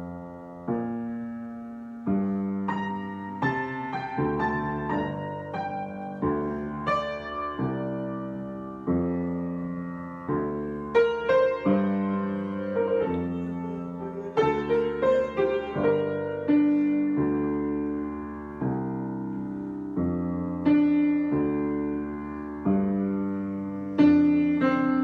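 Solo piano improvisation: chords and single notes struck at an unhurried pace and left to ring and fade, with clusters of quicker notes around the middle.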